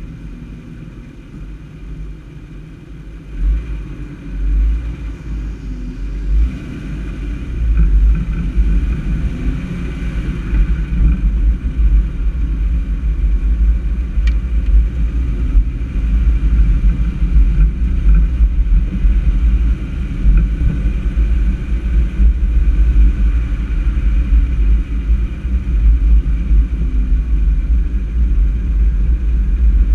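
Low, fluctuating rumble of wind buffeting the microphone of a camera travelling along a street, mixed with the running noise of the vehicle carrying it. It grows louder about eight seconds in.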